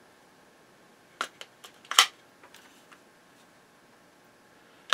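AA batteries being fitted into a plastic remote control's battery compartment: a few short plastic clicks and clacks, the loudest about two seconds in, then a few faint ticks and another click at the end.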